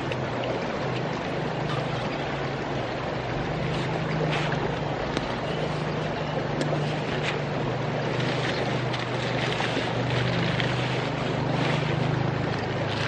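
Steady rushing of a nearby river, with a deep steady rumble under it, and brief rustles of tent fabric and gear being handled.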